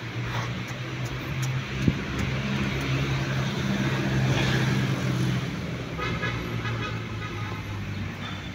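A motor vehicle passing on the road, its engine hum swelling to its loudest about four seconds in and then fading away. There is a sharp knock about two seconds in, and near the end a brief high-pitched chirping.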